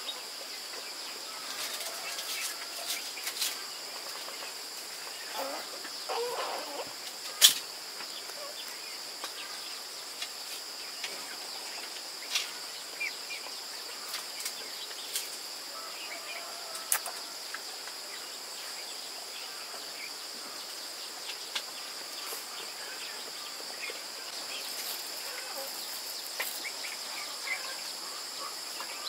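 Steady high-pitched insect drone, with scattered short clicks and chirps over it; one sharp click about seven and a half seconds in is the loudest.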